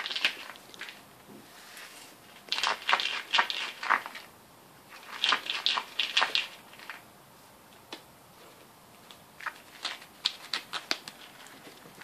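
A ferret scrabbling inside a shoe, its claws scratching and rustling against the shoe and the wooden floor in three bursts of quick scratches with pauses between.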